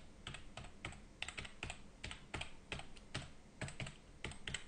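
Typing on a computer keyboard: a run of irregular key clicks, about four a second, as a string of letters and digits is keyed in.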